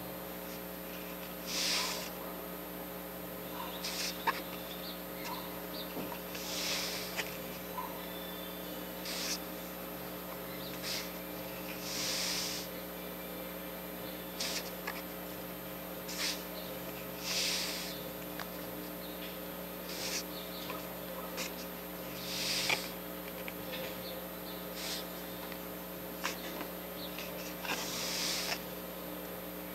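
Steady low electrical hum, with soft breaths close to the microphone about every five seconds. Faint scattered clicks of trading cards being handled.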